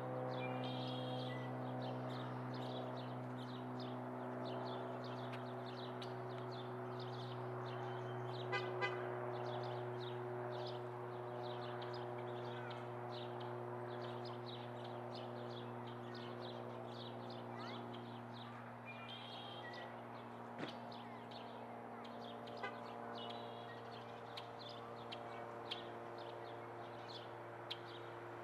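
A steady mechanical drone, a low hum with a stack of overtones that sags slightly in pitch over time, like a motor running. Short, faint high chirps keep sounding over it.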